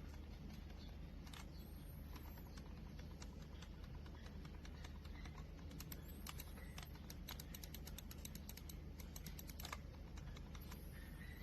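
Small Kailh square silent mouse micro switches being pressed, giving light, scattered clicks that come quickly in a dense run from about six to ten seconds in. A steady low hum lies underneath.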